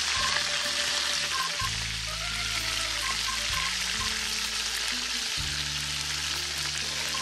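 Chicken thighs pan-searing in a bubbling butter and olive oil mixture: a steady, dense sizzle of hot fat. Soft background music plays underneath.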